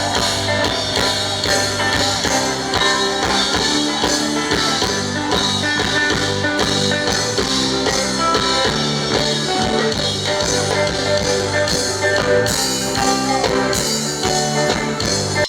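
Band music with guitar and no singing. It cuts off suddenly at the end.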